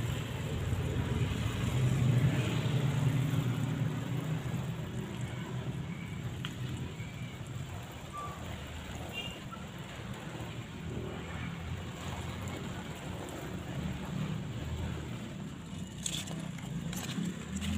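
Water sprinkling from a watering can's rose onto mustard green leaves and soil, over a low rumble that is loudest in the first few seconds. A few faint chirps, and near the end some clicks and rustling as a hand handles the leaves.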